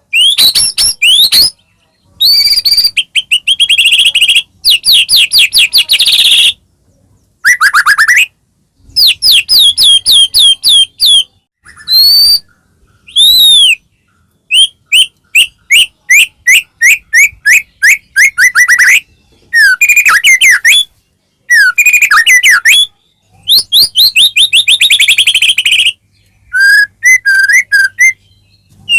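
White-rumped shama singing loudly in rapid phrases of whistled notes and fast trills, one phrase after another with short pauses between them.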